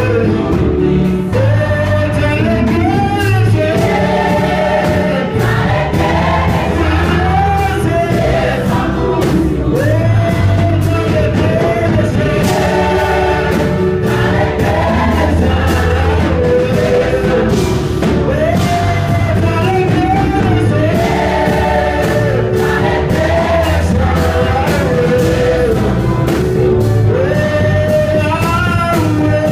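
Church choir singing a gospel worship song through microphones, backed by a live band with drum kit. The voices carry long sustained phrases over a steady, heavy bass beat.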